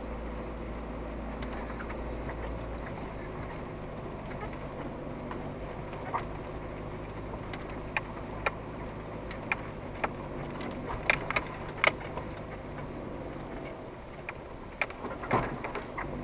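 SUV engine running steadily at crawling speed, heard from inside the cabin. Scattered sharp knocks and rattles join it, the loudest in a cluster past the middle and again near the end, as the vehicle jolts over the rutted dirt track.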